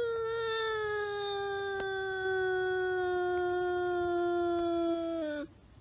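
A cat's long, drawn-out yowl, held for about five seconds and slowly falling in pitch before breaking off: the threatening yowl of a cat squaring off against another cat.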